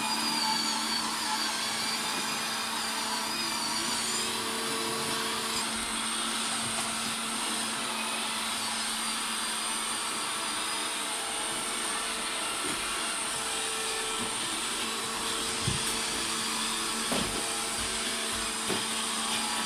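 Robot vacuum cleaner running: a steady motor and brush whir with a held hum, and a few light knocks in the last few seconds.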